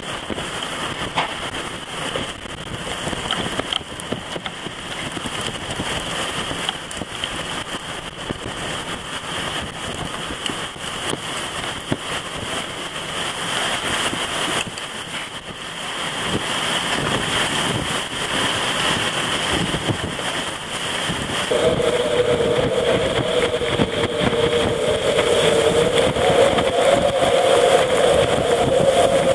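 Tornado winds rushing steadily, with blowing rain and dust. About two-thirds of the way through, a wavering whine joins and the whole gets louder.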